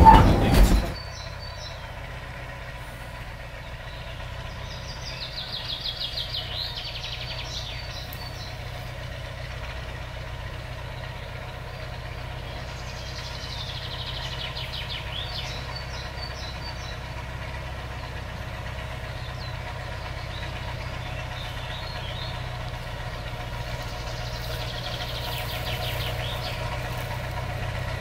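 Narrow-gauge diesel locomotive engine running with a steady low drone, while birds sing in three short spells over it.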